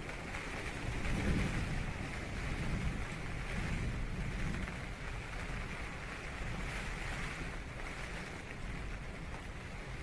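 Heavy rain drumming on tent fabric in a wind-driven storm, a steady hiss with a low rumble that swells about a second in.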